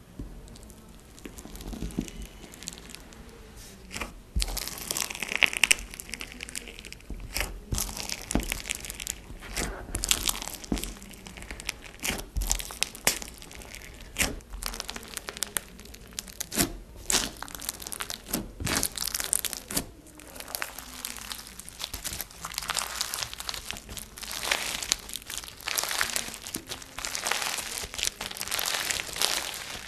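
Hands poking, squishing and stretching crunchy foam-bead slime in a plastic tub, giving a steady stream of small crackles and pops that gets busier near the end.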